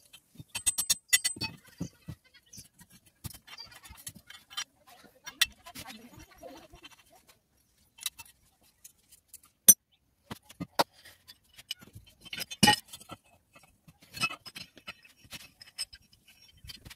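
Metal parts of a hand pump head (handle, chain and pump rod) clinking and knocking against each other as they are handled and fitted together. An irregular series of sharp clinks, the loudest about ten and thirteen seconds in.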